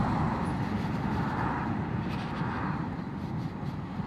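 Wind rumble and tyre and road noise from an electric motorcycle being ridden, slowly easing as it slows from about 28 to 20 mph. Oncoming traffic, a lorry and then cars, swells past a few times.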